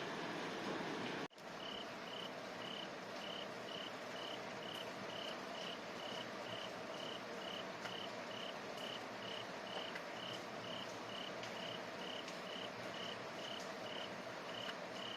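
Rain hiss, heavier for the first second, then a brief cut, after which a cricket chirps in an even rhythm of about three chirps a second over softer steady rain.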